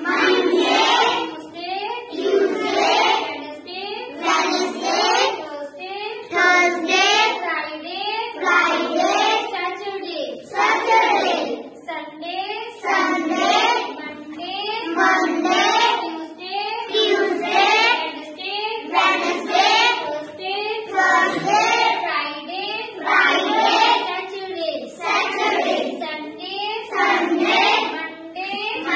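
A class of children chanting in unison in a sing-song rhythm, a phrase about every two seconds, reciting the days of the week after the teacher.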